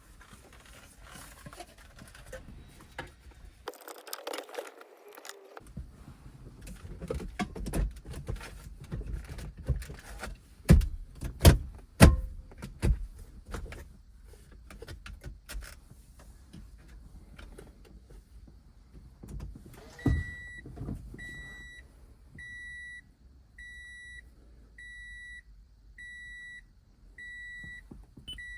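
Clicks, rattles and sharp knocks of the radio unit and dash trim being handled and fitted in a 2012 Toyota Camry, loudest around the middle. Then a thump and the car's warning chime beeping steadily about once a second.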